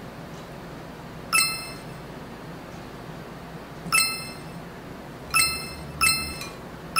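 Chopsticks clinking against a ceramic plate while picking up pieces of pancake. There are five short, ringing clinks: one about a second in, one at four seconds, two close together a second and a half later, and one at the very end.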